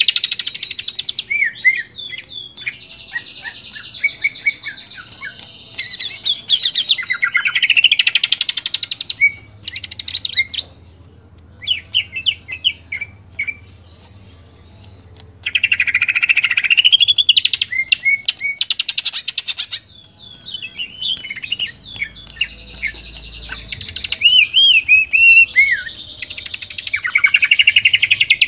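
Green leafbird (cucak ijo) singing a loud, varied song of rapid chattering trills, whistled slurs and scratchy notes, in bursts of a few seconds with sparser single notes between them.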